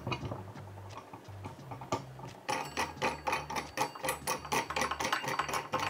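Fast mechanical clicking, like a ratchet, as the dual monitor mount's pole clamp is tightened onto the desk. A few scattered knocks come first, and the rapid clicks start about halfway through.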